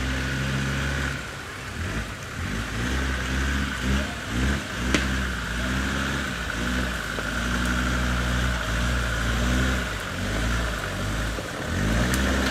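Land Rover Discovery TD5's five-cylinder turbodiesel engine pulling through deep mud, revving up and easing off again and again. A single sharp click about five seconds in.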